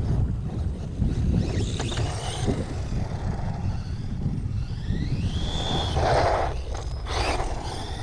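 Brushless electric motor of a 1/16-scale RC truck whining as it accelerates, its pitch rising twice, with short bursts of tyres scrabbling on loose ground near the end. Steady low wind rumble on the microphone underneath.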